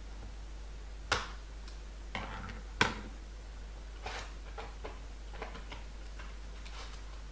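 A cardboard trading-card box being handled and opened: a series of sharp clicks and taps, the two loudest about one and three seconds in, with a brief rustle between them and lighter ticks after.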